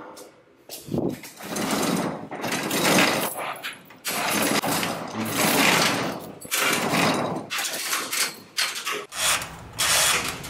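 Roll-up metal garage door being raised by hand with its chain hoist. The chain rattles and the door clatters up in a run of surges, about one per hand-over-hand pull.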